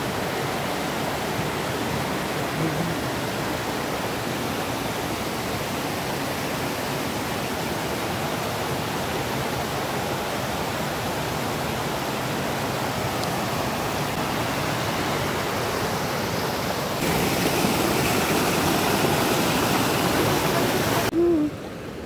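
Rushing river water, a steady even rush. About seventeen seconds in it cuts to a louder, brighter rush, which drops away shortly before the end.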